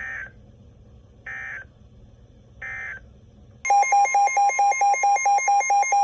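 Emergency Alert System signals from NOAA Weather Radio: three short bursts of the warbling SAME digital code, about a second and a half apart, then near the middle a steady alert tone starts together with a loud, rapidly pulsing beep alarm of about four beeps a second.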